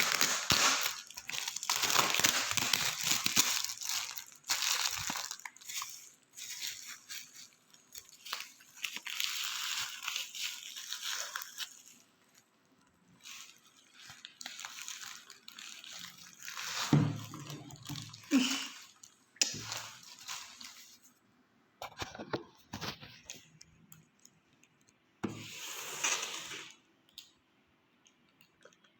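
Plastic parcel packaging being crinkled and torn open by hand: dense rustling and tearing for the first dozen seconds, then sparser rustles and a few soft knocks.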